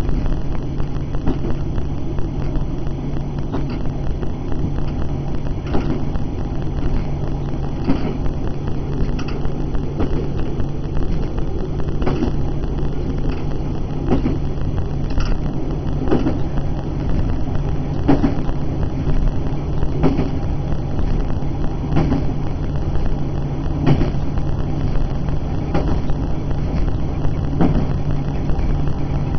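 Diesel passenger train heard from the driver's cab, its engine droning steadily while running along the line, with a regular click from the wheels about every two seconds, typical of rail joints passing beneath.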